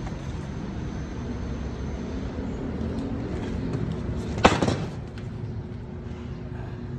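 A steady low rumble with a single sharp knock about four and a half seconds in, ringing briefly.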